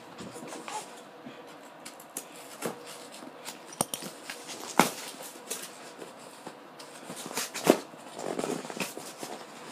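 Handling noise from a VHS tape and its packaging being unpacked: rustling with scattered sharp clicks and knocks, the loudest about four, five and eight seconds in.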